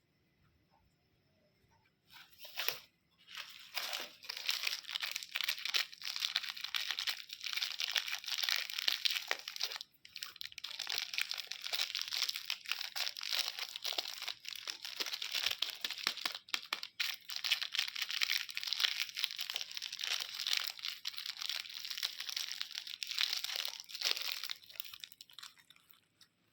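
Candy wrapper crinkling and crackling close up as it is handled, a dense run of sharp crackles that starts about two seconds in, with a few short pauses, and dies away near the end.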